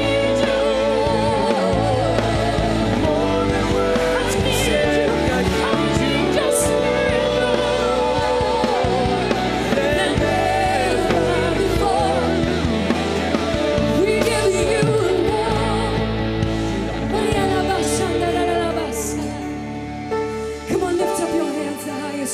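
Live worship band playing with a lead singer's wordless vocal runs over it; the full band thins out near the end.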